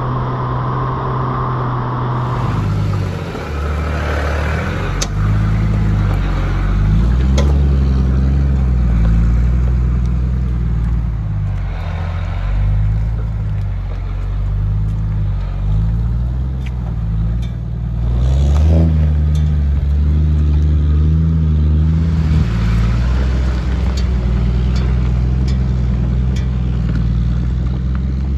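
An 80 Series Toyota LandCruiser's engine working under load as the four-wheel drive crawls up a steep, rutted dirt track. The revs rise and fall, with scattered clicks and clatter from stones and the vehicle.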